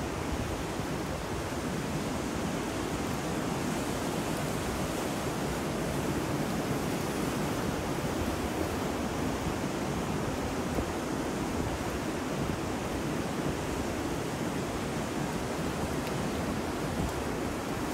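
Steady mix of ocean surf, wind and rain noise, an even wash with no distinct events.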